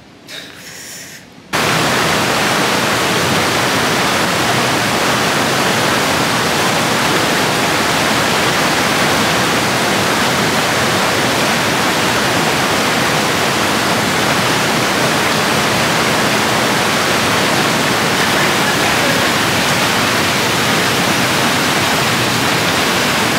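Steady loud rush of water from a spa pool's waterfall spouts and churning jets, which starts abruptly about a second and a half in.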